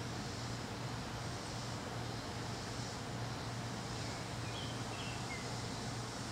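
Steady outdoor background noise with a constant low hum, and a few faint high bird chirps about two-thirds of the way through.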